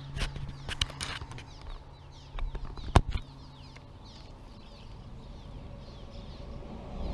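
Steady, rapid high chirping of birds, with several sharp clicks and knocks of handling over it; the loudest knock is about three seconds in.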